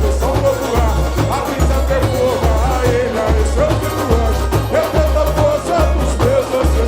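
Live samba-enredo from a samba school parade: the bateria's surdo bass drums beat about every 0.8 s under the sung melody and the other percussion.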